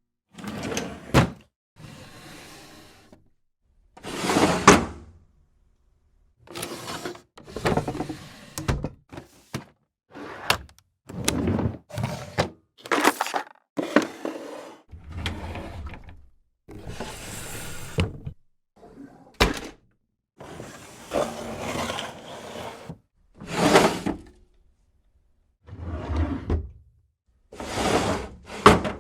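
A series of drawers being slid open and shut one after another. Each is a short rubbing slide, many ending in a sharp knock as the drawer hits its stop, with brief pauses between them.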